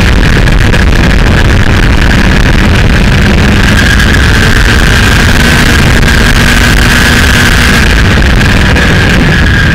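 Kawasaki Ninja motorcycle running steadily at road speed, its engine note mixed with heavy wind rush on the fairing-mounted camera's microphone.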